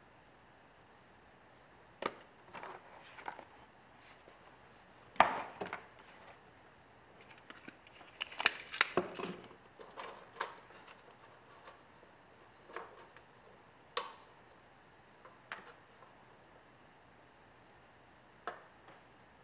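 Sparse clicks and light knocks of hands handling a tape measure and a bamboo rod section on a wooden workbench, with a quiet room hiss underneath. There are about a dozen short impacts, the loudest about five seconds in and a quick cluster about halfway through.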